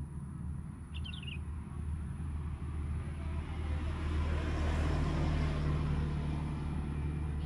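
A motor vehicle passing, its engine noise swelling to a peak about two-thirds of the way through and then easing, over a steady low rumble. A brief bird chirp sounds about a second in.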